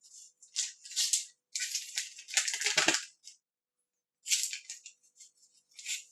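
Small parts of a personal stereo's cassette mechanism being handled and worked by hand: irregular bursts of rattling, scraping and clicking.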